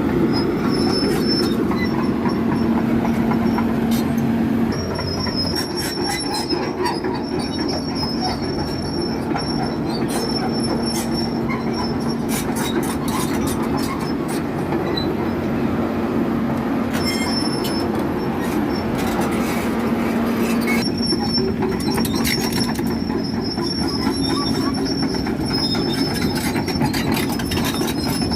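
Concrete pump truck running: a steady mechanical drone with a constant hum, a high thin squeal that comes and goes, and scattered clicks. The sound drops slightly in level about five seconds in.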